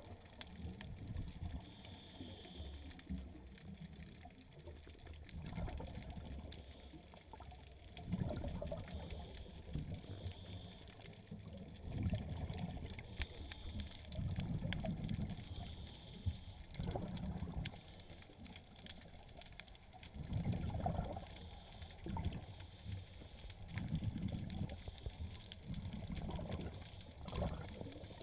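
Underwater water movement and bubbling, coming in low surging pulses every two to three seconds, with short faint hissing bursts between them.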